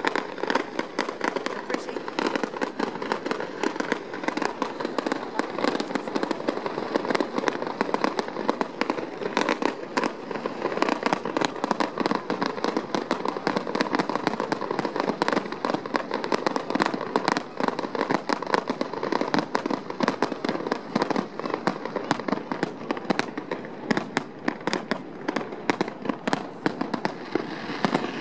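Fireworks display going off in a continuous rapid volley of bangs and crackles, many per second without a break.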